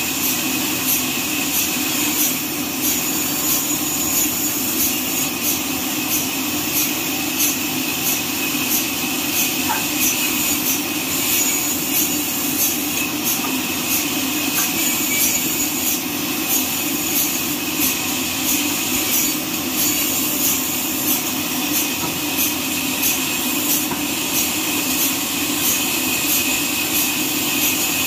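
Horizontal band sawmill cutting lengthwise through a neem log: a steady, loud machine noise with a faint, regular high-pitched ticking over it.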